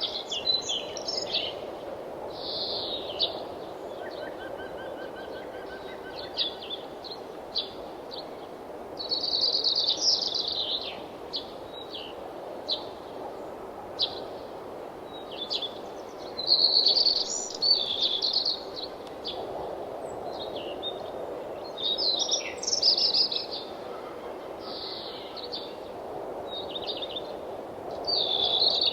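Songbirds chirping and trilling in short bursts every few seconds, several calls overlapping, over a steady low rushing background that may be wind.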